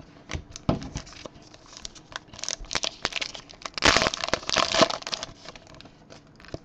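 Plastic wrapper of a Topps Star Wars Journey to The Force Awakens trading card pack crinkling and tearing as it is opened by hand. The crackling builds about two seconds in and is loudest around four to five seconds in.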